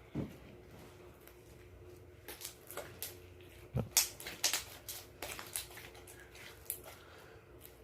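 Homemade glue slime being kneaded and squeezed by hand, giving irregular wet squishes and small sticky pops. The loudest comes about four seconds in.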